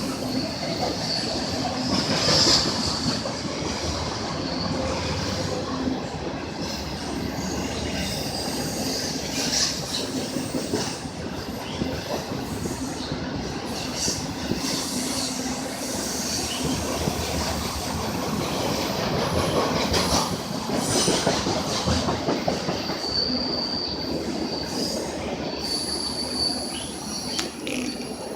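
Freight train rolling past, its steel wheels clacking over the rail joints, with a high wheel squeal that comes and goes.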